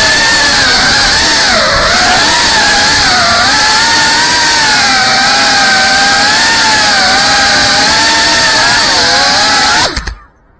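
GEPRC Cinelog 35 cinewhoop's brushless motors and ducted propellers whining as it flies, the pitch of several tones rising and falling together with the throttle. The sound cuts off abruptly about ten seconds in as the motors stop on landing.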